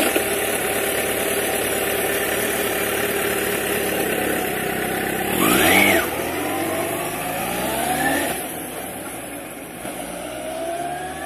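Motorcycle engine running steadily, then revved: a loud rise in pitch about five and a half seconds in, a longer climb up to about eight seconds, and a lighter rev near the end.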